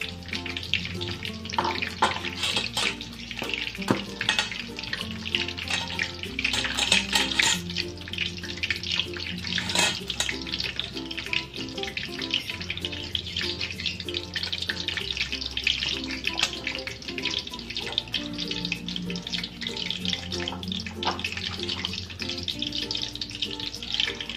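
Battered chicken pieces deep-frying in oil in a wok over low heat: a steady sizzle with many small crackles and pops. Background music with low bass notes plays underneath.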